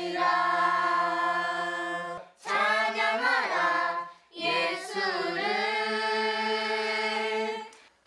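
A family of adults and children singing a hymn together without accompaniment: three sung phrases ending on long held notes, the last held for about three seconds.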